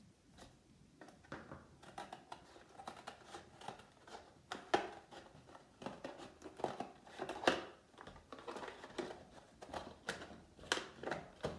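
Scissors cutting through a hard plastic blister pack: a string of irregular sharp snips.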